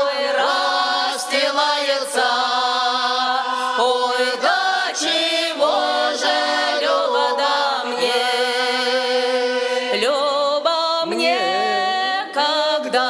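Folk ensemble choir singing in harmony, several voices holding long drawn-out notes between the words of a verse.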